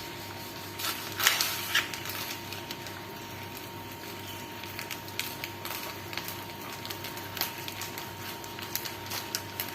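Knife cutting tempeh on a cutting board: irregular taps and knocks, the loudest a little over a second in, over a faint steady hum.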